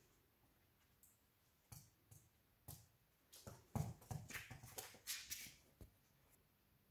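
A scatter of light taps and clicks from a Maltese dog playing with a small toy on a cord on a wooden floor, the toy and claws knocking against the boards, thickest from about three to six seconds in.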